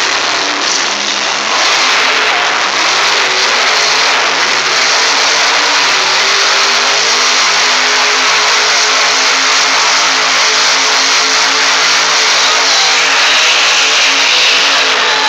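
Monster truck's supercharged V8 engine held at high revs as the truck spins donuts, a loud, steady engine note with little change in pitch.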